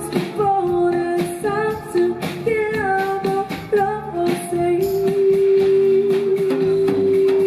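Live music: a woman sings through a microphone and PA over a drum kit, holding one long steady note through the second half.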